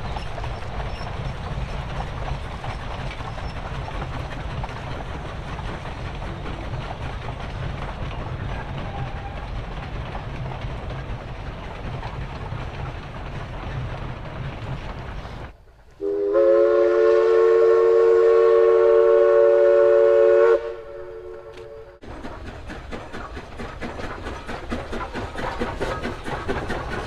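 East Broad Top narrow-gauge steam train running with a steady low rumble, then a loud, long steam whistle blast of several seconds, a chord of steady tones, about two-thirds of the way through, ending in a quieter tail. After it the rumble of the approaching steam locomotive returns and grows louder toward the end.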